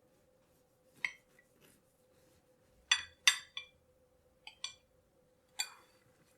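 A metal knife clinking against a dish as a cake is cut into: about seven sharp, irregular clinks with a short ringing tail, over a faint steady hum.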